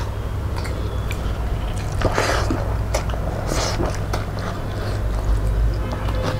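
Close-miked chewing and wet mouth smacks of people eating rice and curry with their hands, in short irregular bursts, with a louder smack about two seconds in and again about three and a half seconds in, over a steady low hum.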